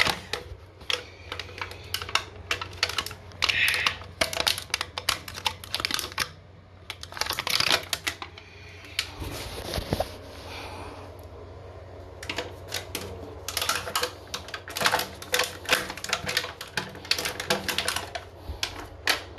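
Irregular runs of sharp clicks and taps as hands work small hard parts at a toilet's floor drain flange, with a soft rubbing noise about nine to eleven seconds in.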